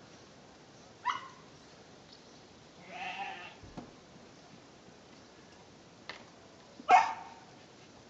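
Samoyed barking: a sharp bark about a second in and a louder one near the end, with a longer, softer call and a short yelp in between.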